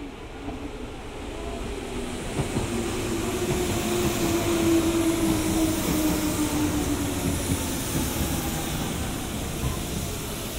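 Older-type Hanshin Jet Car electric commuter train pulling into the station. Its running rumble swells to a peak about halfway through and then eases, while a motor whine slides down in pitch as it brakes.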